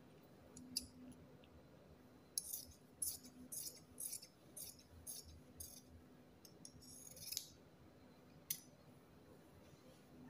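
Large tailor's scissors cutting through cloth: a run of crisp snips, about two a second, starting a couple of seconds in and lasting about five seconds, with a few single clicks before and after.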